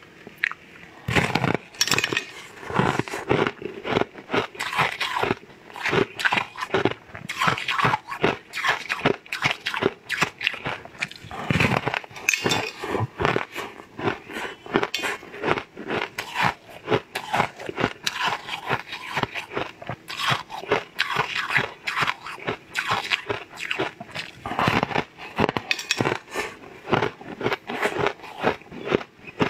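Eating sounds from biting and chewing a large purple star-shaped cake: a continual run of sharp mouth clicks throughout.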